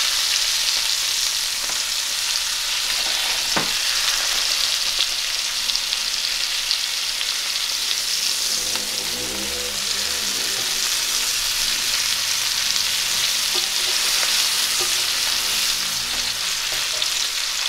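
Flour-dredged haddock fillets shallow-frying in butter in a cast-iron skillet: a steady, even sizzle, with a single sharp click a few seconds in as tongs turn the fillets.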